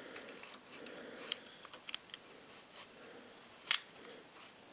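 Light metallic ticks and scrapes of a feeler gauge blade being worked between the rocker arms and valve stems while setting valve clearance on a 1956 International Harvester 300 Utility four-cylinder engine. There are a few sharp clicks, the loudest nearly four seconds in.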